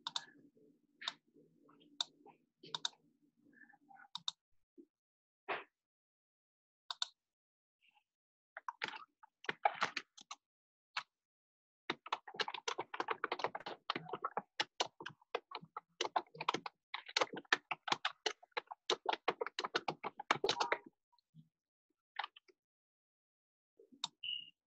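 Typing on a computer keyboard: scattered key clicks at first, then fast runs of typing from about 9 to 21 seconds in, and a few clicks near the end.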